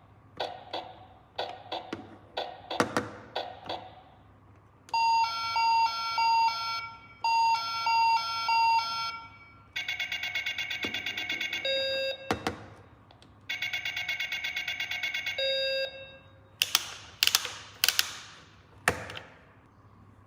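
A battery-powered toy's electronic sound chip plays repeated beeping chime patterns, then two stretches of harsh buzzing electronic tones. Plastic parts click and tap before and after the electronic sounds.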